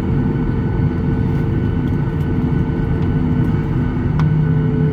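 Cabin noise of a Boeing 737-800 with its CFM56 engines running: a steady low rumble with droning hums. The lowest hum steps up a little about four seconds in.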